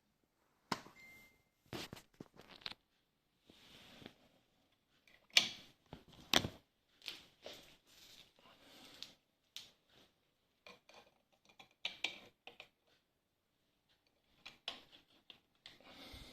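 Irregular clicks, taps and brief rustling of small hard objects being handled, with two louder knocks about five and a half and six and a half seconds in.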